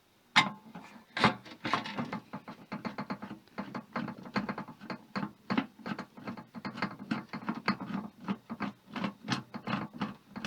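Rapid, fairly even clicking of a screw being undone from a microwave's metal casing, several clicks a second.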